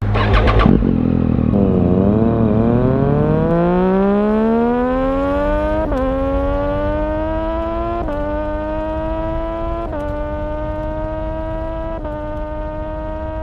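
An engine revving up: its pitch climbs steadily for several seconds and then levels off at a high, steady note, with a slight catch in the pitch about every two seconds in the second half.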